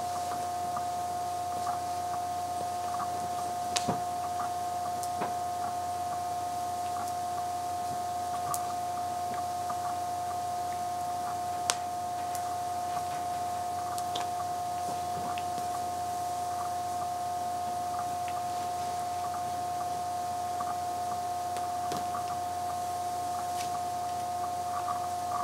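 A steady high-pitched hum, one unchanging tone, with a few faint clicks and knocks scattered through, the clearest about four seconds in and again near twelve seconds.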